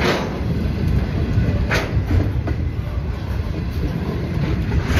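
Freight train's container flat wagons rolling past close by: a steady low rumble of steel wheels on rail, with three sharp knocks, one at the start, one near two seconds in and one near the end.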